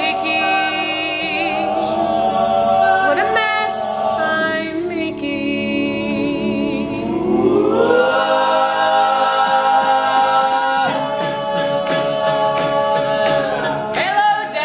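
All-male a cappella group singing in close harmony, a lead voice over the backing voices. About halfway through, the chord slides up and is held.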